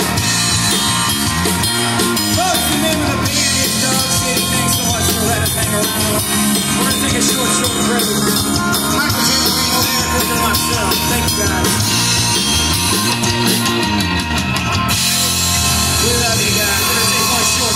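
Live rock band playing electric guitar, bass and drum kit, amplified through QSC CP12 powered PA speakers.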